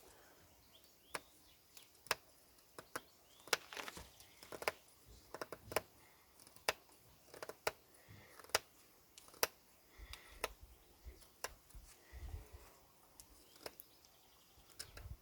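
Pocket-knife blade cutting into fresh, medium-hard wood while carving notches: a series of sharp, short cuts and clicks, roughly one a second, some louder than others.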